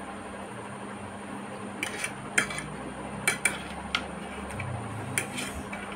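Metal fork clinking and scraping against a ceramic plate while gathering noodles: a string of sharp clinks starting about two seconds in, over a faint steady hum.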